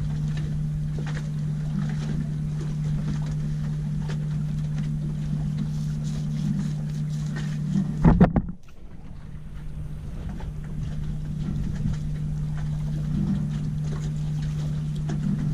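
Boat engine running with a steady low drone under wind and water noise. A short burst of knocks about eight seconds in, after which the drone drops away and slowly comes back.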